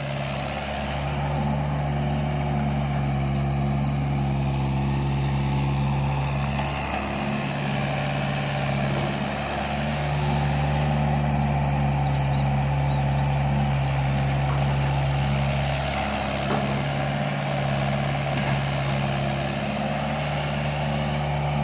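Doosan DX55-5B mini excavator's Yanmar 4TNV four-cylinder diesel engine running steadily while the machine digs and tracks, its note dipping briefly twice.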